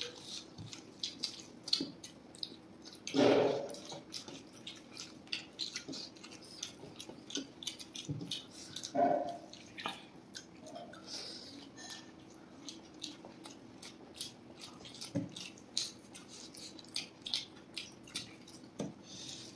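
Close, wet chewing and lip-smacking of people eating soft fried rice and gravy-coated Manchurian balls by hand: a steady run of small sticky mouth clicks and squelches. Two louder short sounds come about three seconds in and again about nine seconds in.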